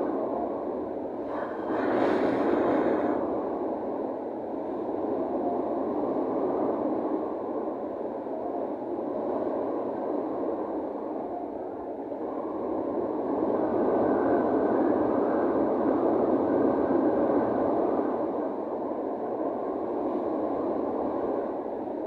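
Wind rushing over a cruise ship's deck at sea and buffeting the phone microphone, swelling and easing in slow gusts. A stronger, brighter gust comes about two seconds in.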